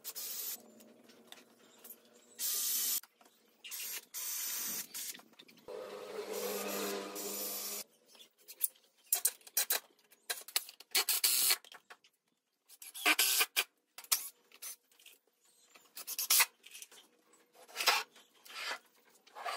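Cordless drill driving wood screws into a wooden table frame, in several runs of about a second or two each. These are followed by a string of short, sharp bursts and knocks.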